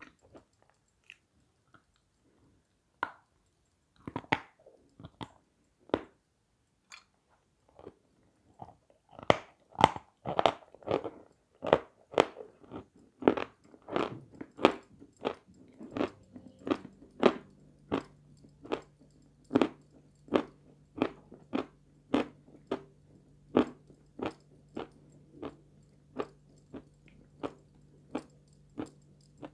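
A person biting and chewing pieces of a white confection: a few separate bites in the first seconds, then steady chewing at about two chews a second from about a third of the way in.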